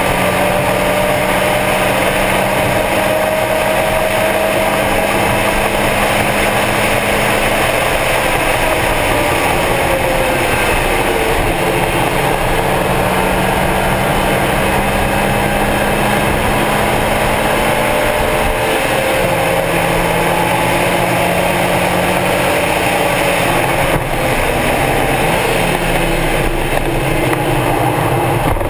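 Stock Mazda Miata's four-cylinder engine running hard on a racetrack, its note shifting up and down in steps several times, over a steady rush of road and wind noise.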